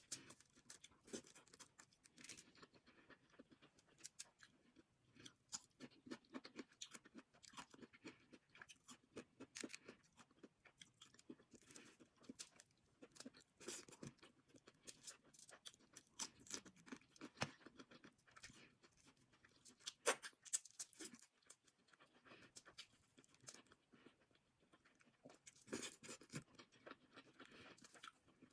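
Person eating seafood from a seafood boil: chewing and crunching, with many short wet clicks and smacks coming irregularly.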